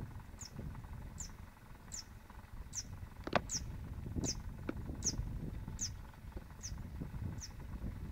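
A small bird calling over and over, a short high falling note about every 0.7 seconds, over a low rumble. A few sharp clicks come about halfway through.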